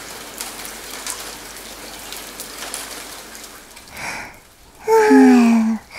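Steady rain falling with a soft patter. About five seconds in, a cartoon character's voice makes a short vocal sound that falls in pitch.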